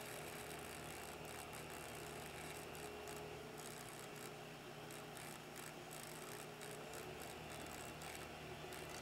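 The small 9V battery-powered pump motor and drill bit of an Algae Mower running underwater, a faint steady whir with a hum and irregular rattling clicks.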